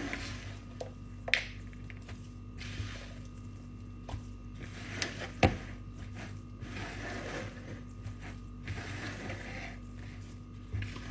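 Steady motor hum with irregular clicking and rustling as dough is worked with candied orange peel and raisins in a bowl, plausibly in a kneading mixer; two sharp knocks, the louder about five and a half seconds in.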